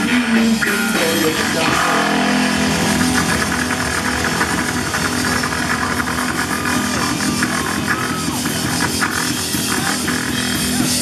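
Live rock band playing loud amplified music: electric guitars and a drum kit.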